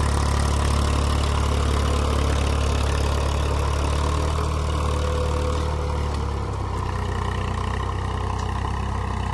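Eicher 380 tractor's diesel engine running steadily under load while driving a rotavator that churns the soil and forms raised beds. The sound is a continuous low engine hum with a rough churning wash over it, a little quieter from about six and a half seconds in.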